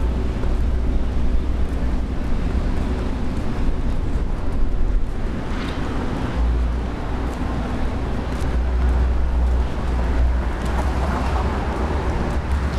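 Street traffic: cars passing, a continuous low rumble of engines and tyres.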